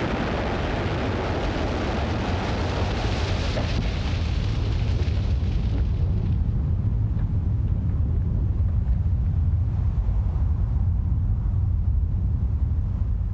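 Dynamite blast in a limestone quarry: the roar of the explosion and falling rock dies away over about six seconds into a steady low rumble.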